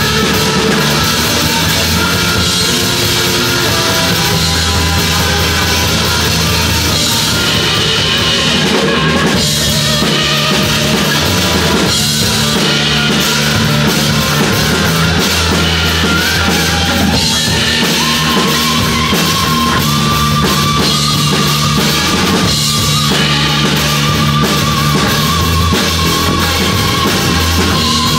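Rock band playing live, loud and continuous: drum kit, electric guitar and bass in an instrumental passage without vocals. A held, wavering high note comes in a little past halfway.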